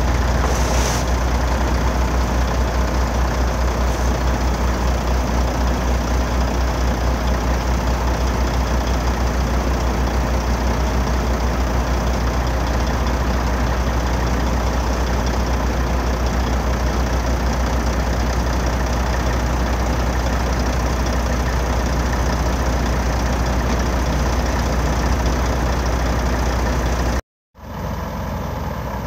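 Heavy truck diesel engine running steadily with a low, even pulsing rumble, held up to drive the hydraulic loader crane as its grapple lifts a wrapped round bale. The sound cuts out briefly near the end and returns slightly quieter.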